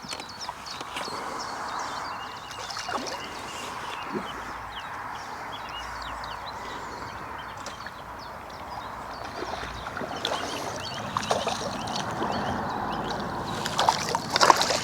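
Water splashing and sloshing as a hooked carp is played on a pole. The splashing grows louder and busier near the end as the fish reaches the surface.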